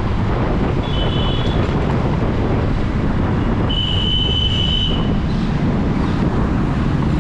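Wind buffeting the microphone and road noise while riding a scooter in traffic, with two horn honks: a short one about a second in and a longer one about four seconds in.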